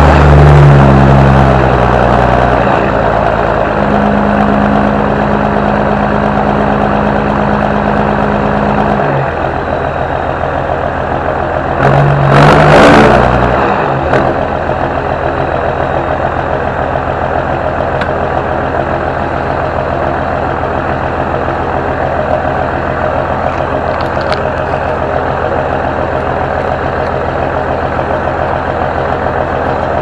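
6820 tractor engine running loudly, its note shifting several times over the first nine seconds. It revs up briefly about twelve seconds in, then settles into a steady, quieter run.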